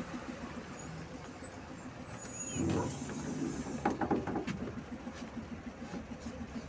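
PAZ 32054 bus engine idling at a stop with a steady low pulse. A short hiss of air rises about two and a half seconds in, and a few sharp knocks of footsteps on the bus's entry steps follow about a second later.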